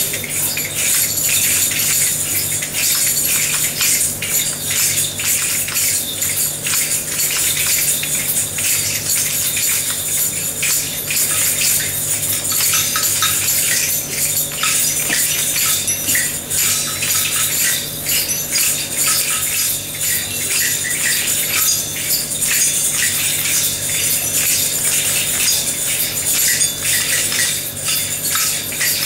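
A roomful of people playing hand percussion together in a free group improvisation: tambourines, shakers and other small jingling and rattling instruments in a continuous dense shimmer of jingles and clicks, over a steady low hum.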